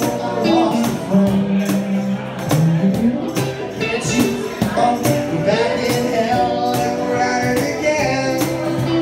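Live band music: a cajon keeps a steady beat with sharp, rattly strikes under sustained electric guitar notes, some of them sliding in pitch.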